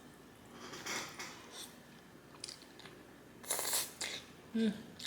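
Close-miked eating sounds of spaghetti: wet slurping and chewing in separate bursts, the loudest about three and a half seconds in. A short hum of the voice comes near the end.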